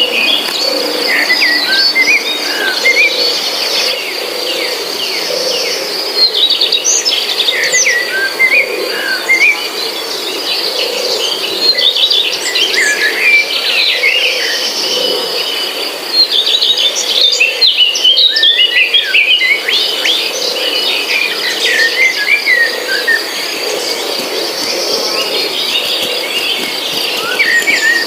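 Birds chirping in many short, varied calls over a steady, high insect trill.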